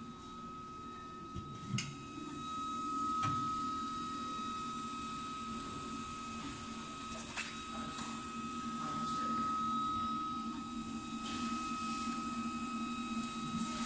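MINGDA MD-4C enclosed 3D printer running a print: a steady mechanical hum from its fans and stepper motors with a constant high whine, and a sharp click about two seconds in.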